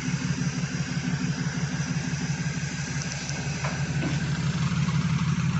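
Audi B8 S4's supercharged 3.0-litre V6 idling steadily through its freshly repaired, leak-free exhaust, with an even low pulsing note; it runs smoothly now that the exhaust leaks are sealed.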